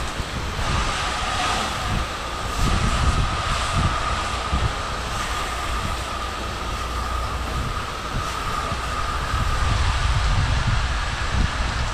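Pressure washer running, its water jet hissing steadily with a thin high whine that comes in about a second in. Wind rumble on the microphone underneath.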